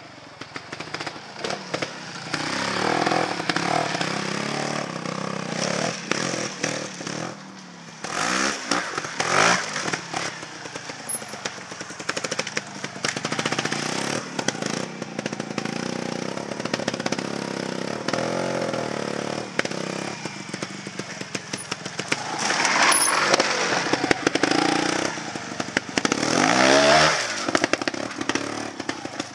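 Trials motorcycle engine running at low revs with throttle blips, revving hard twice: about eight seconds in and near the end, the pitch rising and falling as the bike climbs over obstacles.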